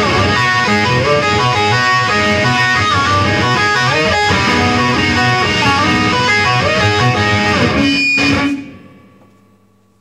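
Electric guitar and drum kit playing live together, a fast, busy guitar line over the drums. The playing stops about eight and a half seconds in and rings away quickly.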